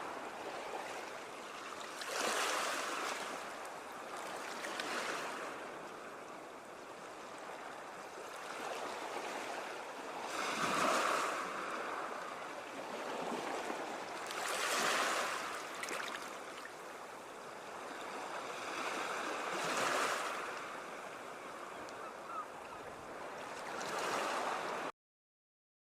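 Ocean waves breaking, a wash of surf that swells every few seconds as each wave comes in, then cuts off abruptly near the end.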